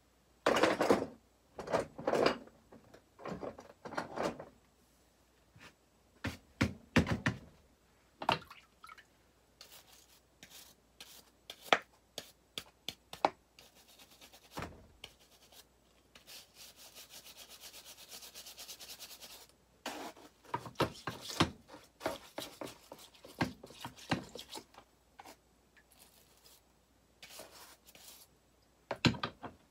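Hand scrubbing rust off a metal tool head: irregular rasping strokes, with a run of fast, even strokes about halfway through.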